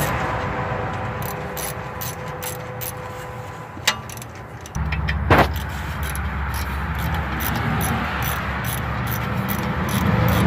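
A ratchet wrench clicking at about three or four clicks a second while loosening the 14 mm bolts of a lower ball joint, with two louder metal knocks near the middle. A steady low rumble runs underneath.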